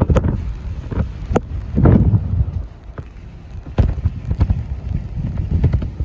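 A gust of wind at about 62 mph battering the microphone, a deep rushing roar with a few sharp clicks. It is loudest at first and again about two seconds in, drops off suddenly before the halfway point, then surges back in shorter gusts.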